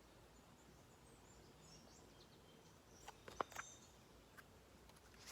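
Near silence: room tone, with a few faint clicks about three seconds in.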